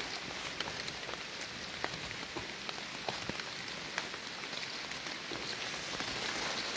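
Steady rain falling in woodland: an even hiss sprinkled with many small, sharp ticks of drops.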